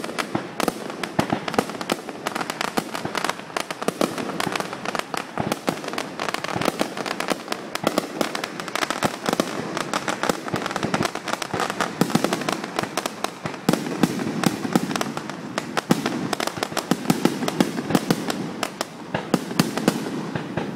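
Aerial fireworks display: a dense, continuous barrage of bangs and crackling from bursting shells, with sharper loud reports standing out every fraction of a second throughout.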